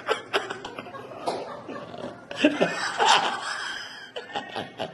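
A person laughing and chuckling in short, uneven bursts.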